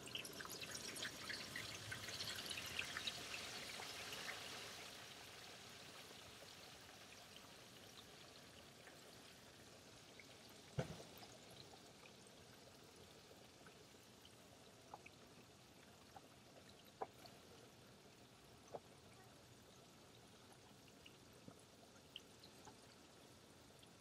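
A whole turkey frying in a pot of hot oil: a crackling sizzle that is strongest for the first four seconds or so, then dies down to faint bubbling with scattered small pops. The turkey has just gone into the oil, and the sizzle eases as the first rush of bubbling settles. A single knock comes about eleven seconds in.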